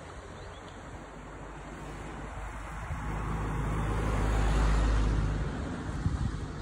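Steady rush of wind and distant surf, swelling into a louder low rumble about three seconds in that peaks and then fades before the end.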